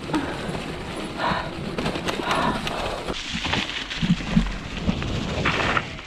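Mountain bike clattering and bumping as it rolls downhill over a rough forest trail, with irregular knocks from the bike over a steady rushing noise.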